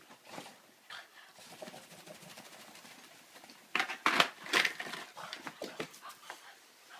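A freshly bathed Cavalier King Charles spaniel scrambling about: irregular scuffling and rustling of paws and body, with a louder flurry of knocks and rustles about four seconds in.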